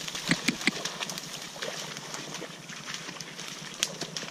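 Dry reed stems and grass rustling and crackling as they are pushed through, with a run of sharp snaps, the loudest near the start and near the end.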